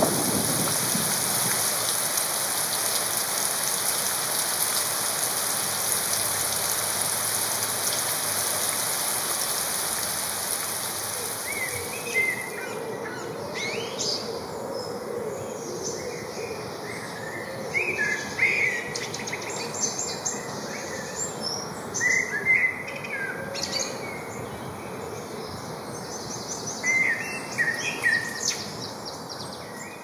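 Recorded nature sounds played back for a speaker sound test: a steady rain hiss that fades away over the first twelve seconds or so, then scattered short bird chirps.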